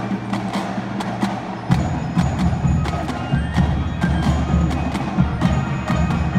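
School marching band playing: a held low chord under sharp percussion strikes, then about two seconds in the full band comes in louder and heavier in the low end.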